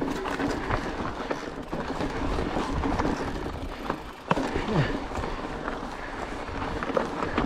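Mountain bike riding over a rocky dirt trail: tyres crunching over gravel and the chain and bike parts rattling over the bumps, with one sharp knock a little over four seconds in.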